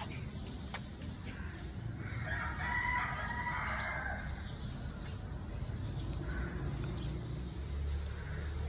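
A rooster crowing once, a call of about two seconds starting about two seconds in, over a steady low rumble.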